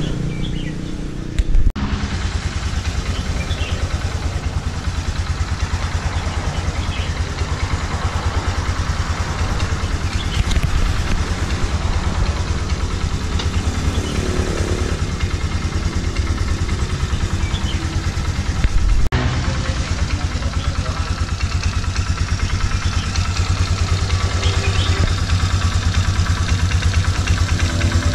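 Polaris Sportsman 400 H.O. ATV's single-cylinder four-stroke engine idling, with a steady, even beat of rapid firing pulses.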